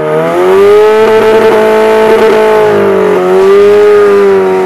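Rock-crawler buggy's engine revved hard and held at high revs, the pitch dipping briefly near the start and again about three seconds in, as the driver spins the soaking-wet front tires to burn them clean.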